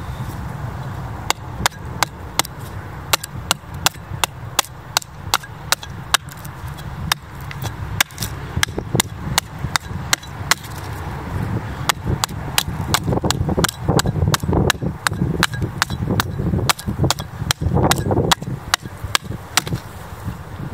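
A medieval-style axe hewing the edge of a red oak board held upright on a log: a steady run of sharp chopping strikes, about two a second.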